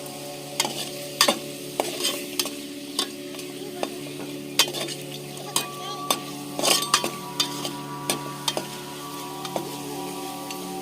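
A spatula stirring chicken frying in a pan: irregular scrapes and knocks against the pan over a steady sizzle, with a low steady hum underneath.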